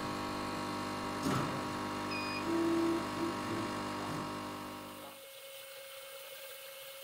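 Laser cutter's air-assist compressor and fume blower running after switch-on: a steady hum made of many tones, with a click about a second in. About five seconds in the hum drops away, leaving a fainter steady tone.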